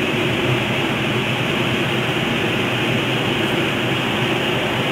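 Steady rushing of air over a small camera mounted on a radio-controlled model glider in flight, an even noise with no change in level.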